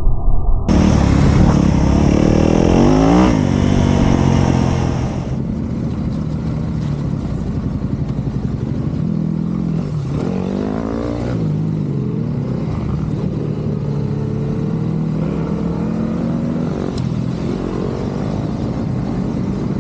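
Yamaha Ténéré 700's parallel-twin engine heard from on board, revving up and down as the throttle is worked on a dirt trail, its pitch rising and falling several times.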